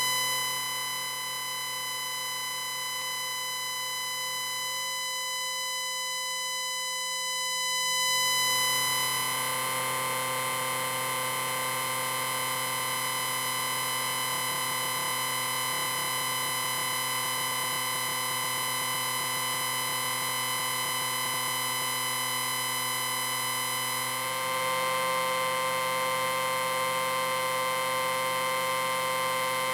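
Electrical distortion sound effect: a steady electrical hum made of many stacked fixed tones with a hiss. About eight seconds in it swells and the hiss thickens, and near 24 s it steps up a little in level and its tone shifts.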